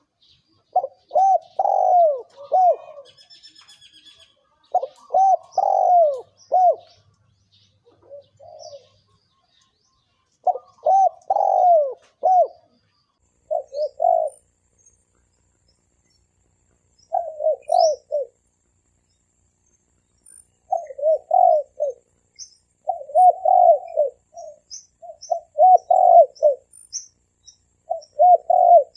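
Spotted dove cooing in the 'thổ kim' voice, a call used as a lure to draw in wild doves. It gives about nine short phrases of several rolling, arching coos, with pauses of a couple of seconds between some of them.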